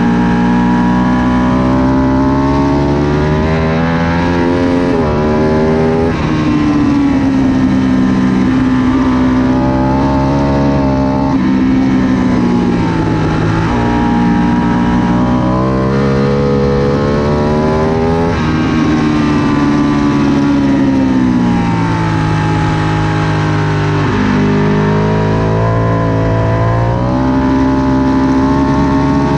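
Ducati Panigale 1199 S's V-twin engine heard from on board at racing speed. Its pitch climbs as it pulls hard through the gears, then drops away under braking and downshifts, again and again around the lap.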